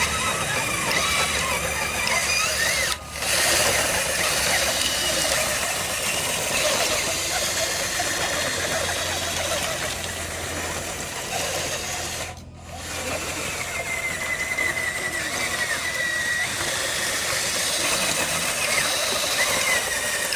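Small electric motors and gear drives of radio-controlled construction models whining, their pitch sliding up and down as they work. The sound breaks off briefly twice.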